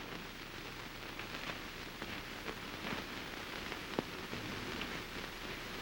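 Steady hiss with scattered crackles and clicks, the surface noise of a worn early sound-era film soundtrack; one sharper click about four seconds in.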